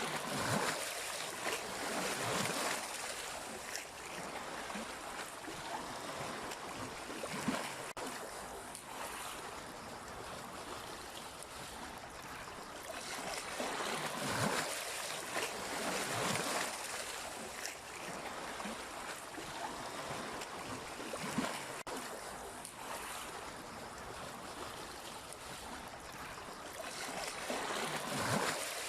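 Sea waves washing in steadily, swelling into louder surges of breaking water every few seconds.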